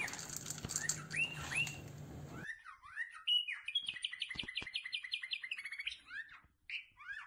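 Small birds chirping and twittering, in short rising chirps with a quick rapid run of chirps a few seconds in. A low background hum under the start cuts out suddenly about two and a half seconds in.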